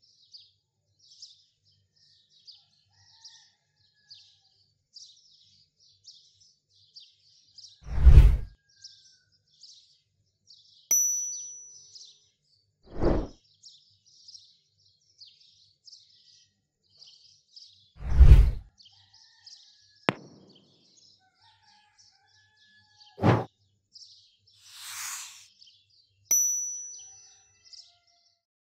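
A small bird chirping over and over, about every two-thirds of a second, under four deep thumps about five seconds apart, which are the loudest sounds. Two ringing dings fade away slowly, and a short hiss comes near the end.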